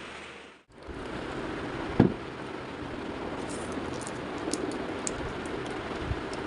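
Objects being handled and set down on a wooden desk over a steady background hum: one sharp knock about two seconds in, then light clicks and a soft thud near the end as a chocolate bar is placed on the desk.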